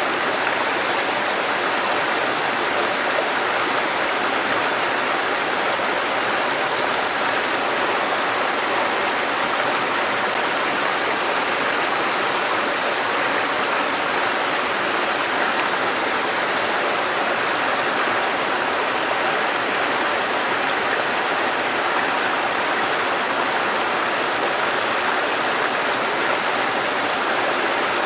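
A shallow river babbling: steady, even flowing water.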